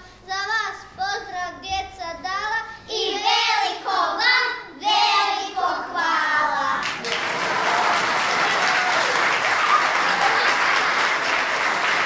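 A child singing, the song ending about seven seconds in, followed by audience applause.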